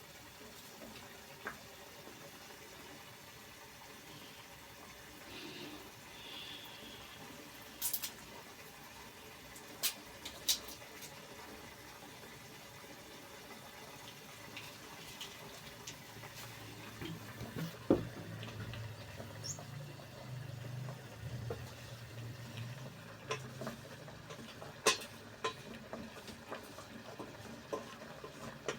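Kitchen cooking sounds: scattered sharp clicks and knocks of utensils over a steady hiss, the loudest knock a little past halfway, with a low hum coming in a little after halfway.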